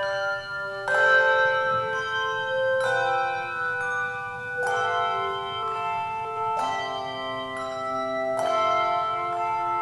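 Handbell quartet playing a slow piece: chords of bells struck about every two seconds, each ringing on and overlapping the next.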